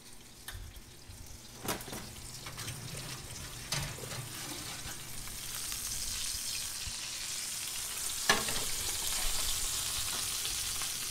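Hot oil sizzling in a pan: a steady hiss that builds from about two seconds in and then holds, broken by a few sharp clicks, the loudest about eight seconds in.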